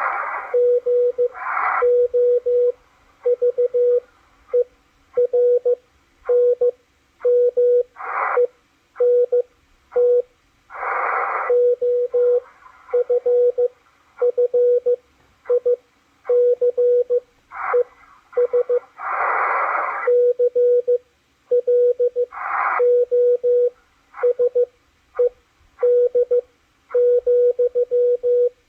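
Morse code from W1AW played through a Machilite DSP SDR receiver: a single steady mid-pitched tone keyed on and off in dots and dashes. Patches of hissy band noise fill the longer gaps between characters.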